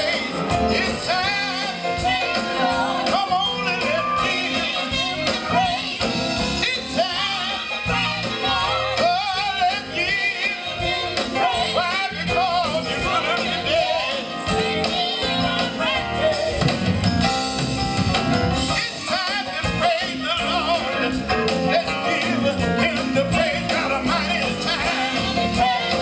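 Gospel group singing live with a band, drums keeping a steady beat under the voices.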